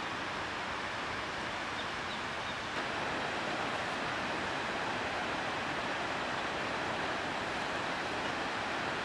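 Steady, even outdoor rushing noise with no distinct events, a little louder from about three seconds in.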